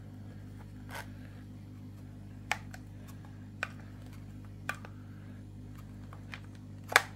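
About five short small clicks from needle-nose pliers gripping and pulling the push pins out of an Umarex HDP 50 pistol's frame, the loudest near the end, over a steady low hum.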